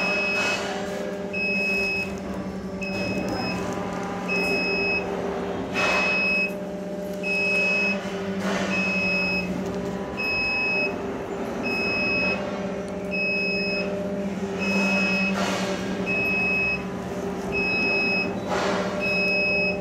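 Goods lift descending with its warning beeper giving a high beep about every second and a half, over a steady electric hum from the lift's drive, with a few short knocks.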